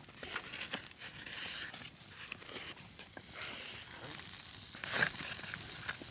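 Paper plates rustling and crinkling as they are handled as makeshift pot holders, with scattered light clicks and one sharper knock about five seconds in.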